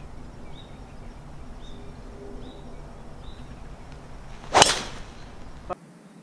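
A golf driver striking a teed-up ball, a single sharp crack about four and a half seconds in. Before it there are a few faint, short high chirps.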